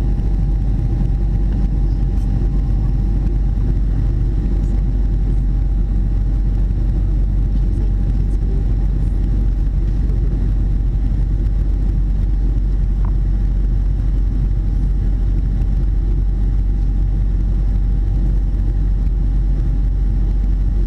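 Jet airliner cabin noise in flight: a steady low rumble of engines and rushing air, with a faint steady hum above it.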